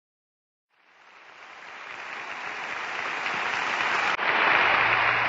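A rushing, hiss-like noise fades in from silence and keeps growing louder, with a brief dip about four seconds in. A low steady hum joins near the end.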